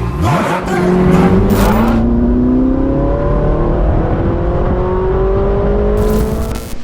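Car engine accelerating, its pitch climbing slowly and steadily for several seconds.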